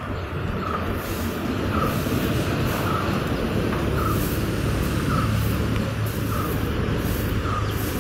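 A motor vehicle's engine running nearby, its rumble slowly growing louder, with a faint short chirp repeating about once a second.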